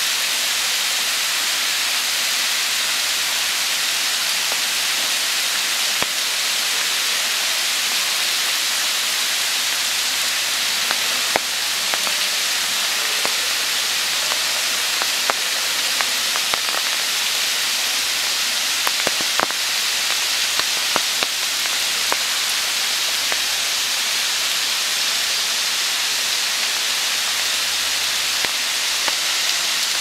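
Waterfall spilling from a high cliff and splashing onto the rock below: a steady, even hiss of falling water, with a few sharp ticks scattered through the middle.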